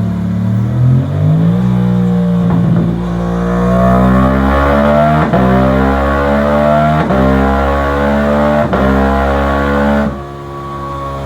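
Yamaha R7's 689 cc parallel-twin engine revving: a short blip from idle, then the revs climb slowly over several seconds with a few brief dips, and it falls back to idle near the end.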